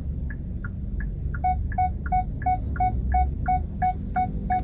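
Kia K3's parking distance sensor beeping while the car reverses into a space, about three beeps a second, speeding up to about four a second with a lower second tone added about a second and a half in as the car nears the obstacle behind. Low engine and cabin rumble underneath.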